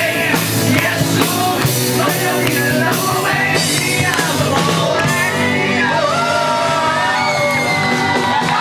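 Live amplified rock band with two male singers, electric guitars and a drum kit. The drum strokes stop about five seconds in, and the sound thins to a long held note.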